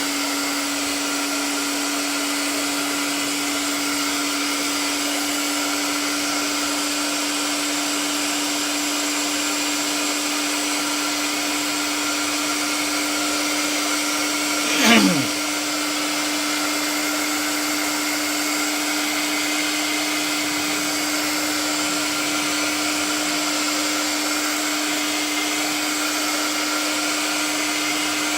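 Hairdryer running steadily, its motor giving a constant hum under a rush of air, blowing residual dampness out of a rain-wetted monitor. About halfway through there is a brief louder swoosh that falls in pitch, and then the steady running goes on.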